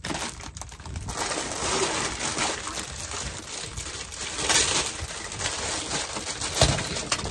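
Plastic toy tools being handled and rummaged through in a toy toolbox: rustling with many small clicks and clatters, and a sharper knock near the end.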